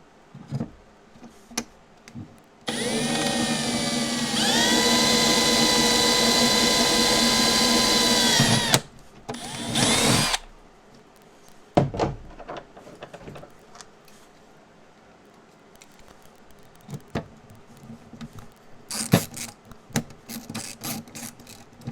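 Power drill running for about six seconds, its whine stepping up to a higher steady speed partway through, then a second short run about a second later. Light clicks and handling sounds follow near the end.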